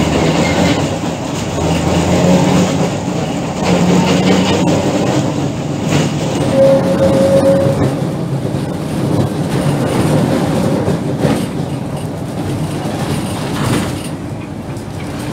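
BKVT S type vintage tram heard from inside its wooden car while running along the track: a steady rumble of the wheels on the rails with a low hum, and a short, higher steady tone around the middle.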